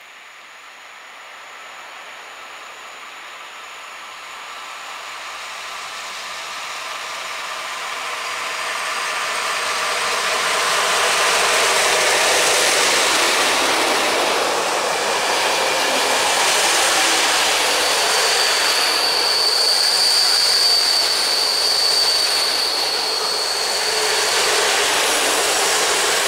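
An EP08 electric locomotive hauling an Intercity passenger train approaches, growing steadily louder for about ten seconds. The coaches then roll close past at speed. A steady high-pitched tone rings out for several seconds near the end.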